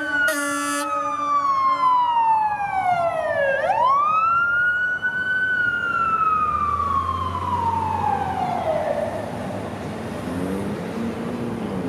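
Emergency vehicle siren wailing: its pitch falls slowly, sweeps back up about three and a half seconds in, then falls slowly again and fades out near the end, over the noise of city traffic.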